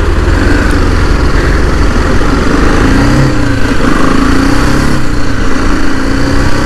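Motorcycle engine running at low road speed, its note wavering slightly up and down, with wind rumbling on the microphone.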